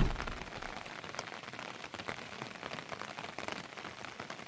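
Heavy rain falling steadily, a constant hiss of drops with many small ticks of individual drops hitting close by.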